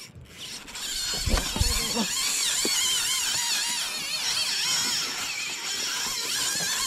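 Spinning reel's drag screaming as a hooked bluefin tuna runs and strips braided line off the spool against full drag: a continuous high, warbling whine that starts about a second in, with a few low knocks at its start.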